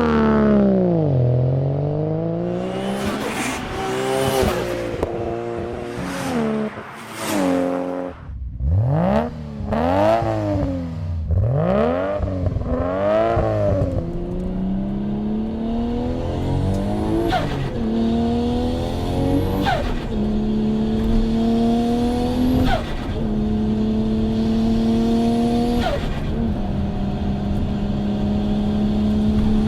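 Turbocharged Nissan Skyline R34 GT-R: an RB26 straight-six on a single HKS T04Z turbo. It revs up and down in quick blips, then accelerates through the gears, its pitch climbing and dropping sharply at each of four shifts, with a faint high turbo whistle rising with the revs.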